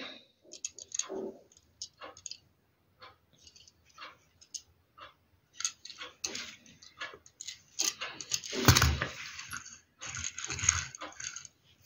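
Small scattered clicks and taps of a 1:60 scale Opel Manta A model car being turned over in the fingers, with louder rustling and clattering in the last few seconds as it is handled down onto a paper magazine.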